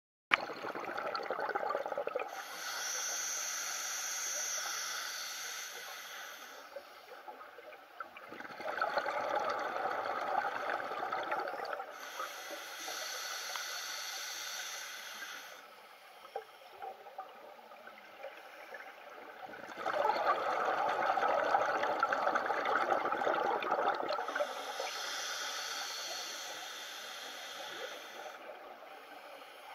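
A scuba diver breathing through a regulator underwater: slow breaths, each a long hissing inhalation followed by a louder rush of exhaled bubbles, about every ten seconds.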